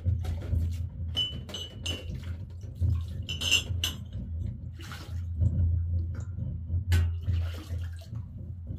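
Dishes being washed by hand in a metal basin: water poured and splashed from a plastic cup, with repeated clinks of metal plates and bowls, and a metal dish ringing briefly twice. A low steady hum runs underneath.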